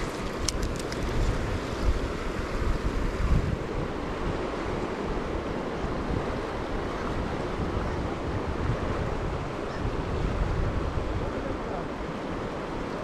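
Steady rush of a fast-flowing river, with wind buffeting the microphone in a low rumble.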